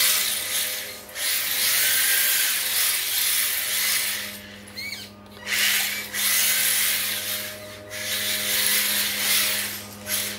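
1:10 HSP brushed 4WD RC drift car sliding its tyres across a tile floor: a hissing scrub that comes in stretches of a few seconds as the car drifts, with short lulls twice and a few brief squeaks near the middle.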